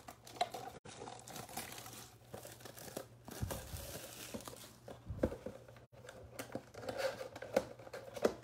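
Plastic shrink wrap being torn and crumpled off a cardboard trading-card box, with a few sharper crackles and knocks as the box is handled.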